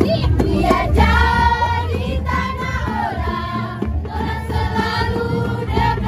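A group of girls singing a song together in chorus, with shaken bamboo angklung rattling along and an acoustic guitar accompanying. A steady deep bass hum sits underneath.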